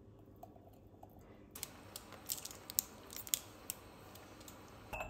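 Irregular light clicks and clinks of jars and kitchen utensils being handled, starting about a second and a half in, over a low room hum.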